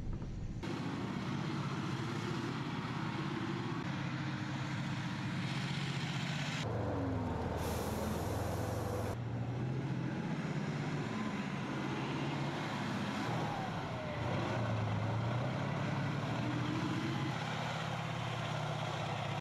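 Main battle tank driving over muddy ground, its engine running steadily under load. The engine note wavers up and down a little, and the sound changes abruptly a few times.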